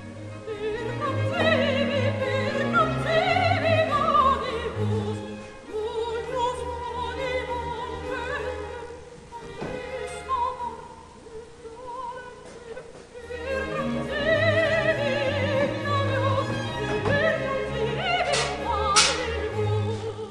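Opera as background music: a singer with vibrato over an orchestra. There are a few sharp clicks near the end.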